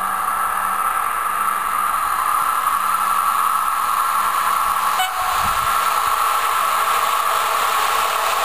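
Steady hiss, with a passenger train faintly heard approaching along the track. A short knock comes about five seconds in.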